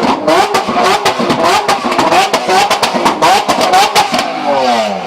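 Lamborghini engine revved hard in quick repeated blips, about two or three a second, with sharp cracks on each blip; about four seconds in the revs fall away in one long drop.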